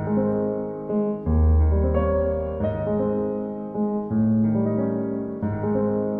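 Background music: slow piano chords, with a new chord struck about every second and a half.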